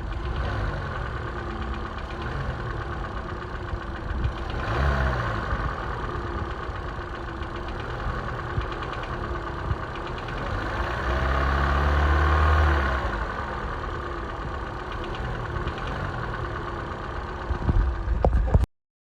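2013 Hyundai Elantra's 1.8-litre four-cylinder engine idling with a slight rhythmic knock: piston slap. It is revved briefly about five seconds in and again, longer, around eleven to thirteen seconds, then cuts off suddenly near the end.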